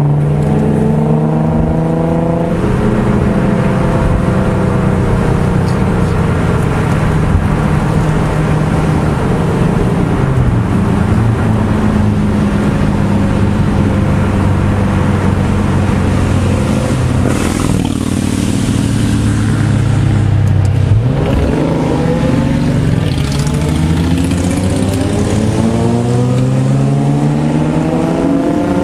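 Infiniti G sedan's V6 engine heard from inside the cabin, its pitch rising and falling as the car accelerates and shifts. The pitch steps down about two seconds in, dips again around twenty seconds, then climbs steadily toward the end as it pulls up through the revs.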